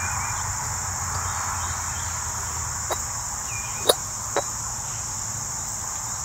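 Steady high-pitched chorus of insects, with a few sharp clicks about three to four and a half seconds in.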